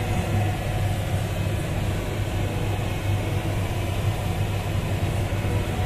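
Steady street background noise with a low, even hum.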